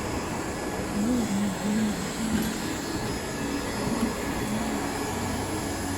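Steady whir of the TOP3400C hot-air welding machine's blower, just switched on and running before the heater is turned on.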